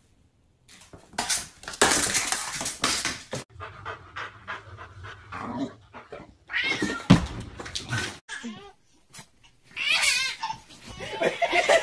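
A pet animal's noises and calls: a stretch of harsh, noisy sound starting about a second in, then shorter pitched cries around the middle and again near the end.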